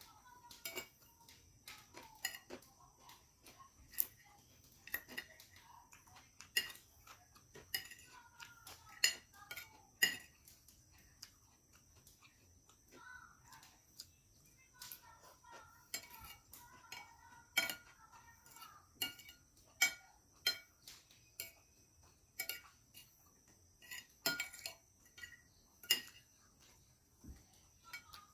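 A spoon clinking and scraping against a plate while eating fried rice, in many short, irregular clicks.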